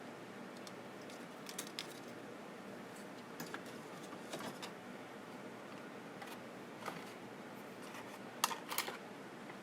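Scattered light clicks and taps of plastic and metal parts being handled as a CD/DVD changer is taken apart, with a quick cluster of clicks near the end, over a steady hiss.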